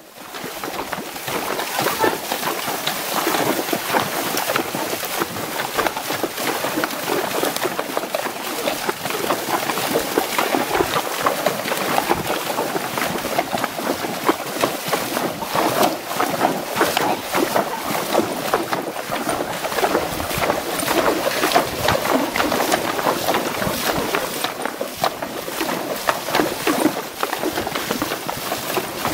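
Horses walking through a shallow creek, their hooves splashing water with many small, irregular splashes, heard close from the saddle.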